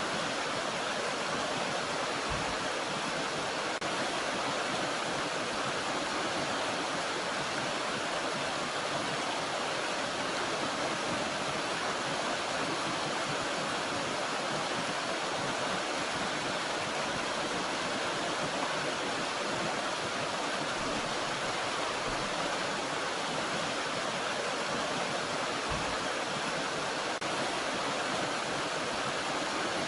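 Waterfall water rushing in a steady, even stream, with no change in level.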